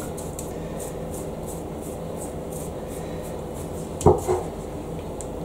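Pastry brush stroking oil over a raw pie crust: soft, regular brushing about three strokes a second, over a steady low hum. A single knock on the wooden board about four seconds in.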